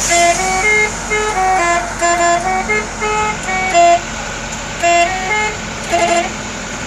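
Bus 'telolet' multi-tone air horn playing a quick melody of short stepped notes, in two phrases with a brief break about four seconds in, over the steady hum of the bus.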